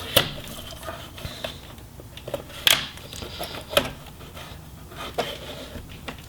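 Plastic snap clips of a laptop's hinge cover clicking and scraping as a flat pry tool works them loose: four or so sharp clicks spread through, with lighter scraping and handling between them.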